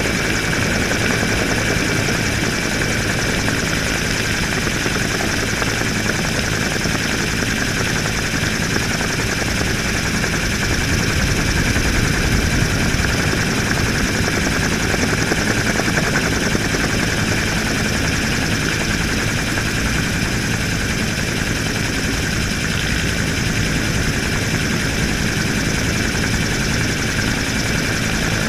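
Helicopter in flight, heard from beside its open cabin door: steady rotor and engine noise with a thin high whine over it.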